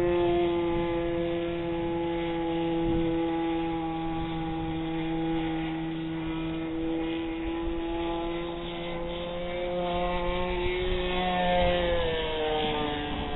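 Radio-controlled Funtana model airplane in flight, its engine and propeller making a steady pitched drone that drops in pitch about twelve seconds in.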